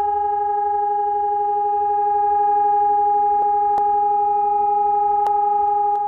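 Air raid siren sounding across the city on one steady, held note, with no rise or fall in pitch.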